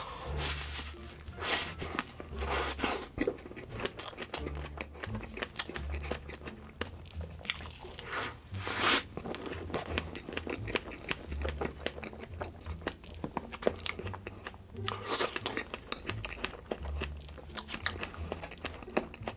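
Close-miked eating of strawberry cream cake: chewing and mouth sounds with many sharp little clicks as big forkfuls are bitten off and eaten.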